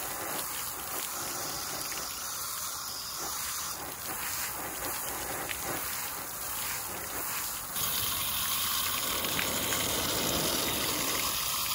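Garden hose spraying water onto asphalt shingles and a Flex Tape patch as a leak test: a steady rushing hiss of spray and splashing, which turns louder and brighter about eight seconds in.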